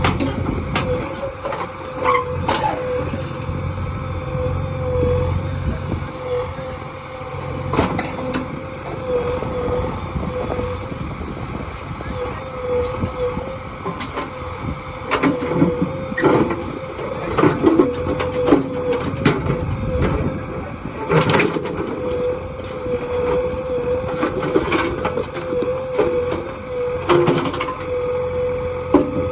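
JCB 3DX backhoe loader's diesel engine running under load with a steady high whine, while the steel bucket knocks and scrapes against hard stone in sharp, irregular clanks. The loudest strike comes about two-thirds of the way through.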